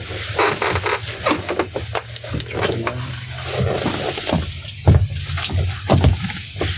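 A person shifting and rolling over on a padded treatment table: irregular rustling and rubbing against the table, with small creaks and one louder thump about five seconds in, over a steady low hum.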